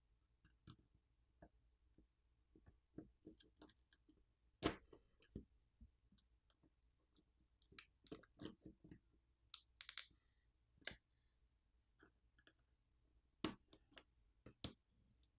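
Faint, scattered clicks and taps of a plastic spudger and fingertips against a smartphone's opened internals, prying at the main board and its connectors. The sharpest click comes about four and a half seconds in.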